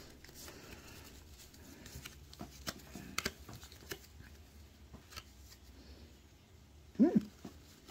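Trading cards being handled and set upright: a scattering of faint light clicks and taps of card stock. About seven seconds in, a short pitched vocal sound, rising then falling, is the loudest thing.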